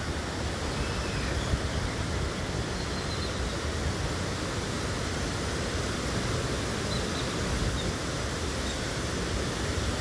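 Steady, even rush of waterfalls pouring into a pool.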